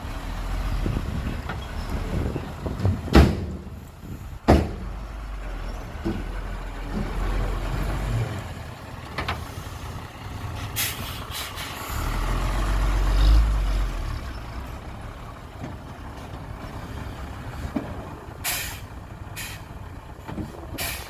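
Heavy machinery at work: a low engine rumble that swells twice, with two sharp knocks and several short hissing bursts.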